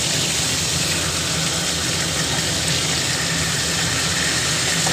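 Catla fish heads frying in hot mustard oil in a kadai: a steady sizzle with a low hum underneath, as the heads are turned over with a spatula.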